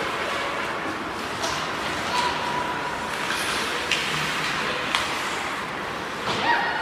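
Ice hockey in play in a rink: a steady hiss of skates on the ice, with a few sharp clacks of sticks and puck at uneven intervals.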